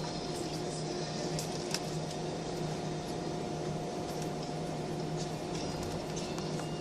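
Steady drone inside an airliner cabin on the ground before takeoff: engine and air-conditioning hum holding a few fixed tones, with a couple of faint clicks about a second and a half in.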